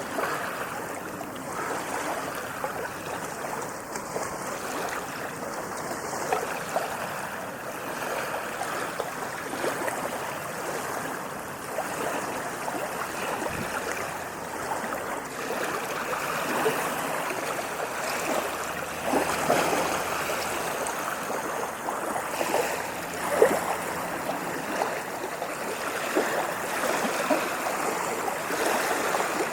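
Ocean waves washing in a steady rush of water, with a few brief louder splashes in the second half.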